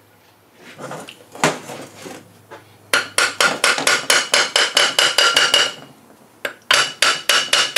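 Ratchet wrench clicking rapidly on a bolt in a Land Rover differential's pinion housing, metal on metal with a slight ring, about six clicks a second in two runs, the second starting near the end, as the bolt is undone.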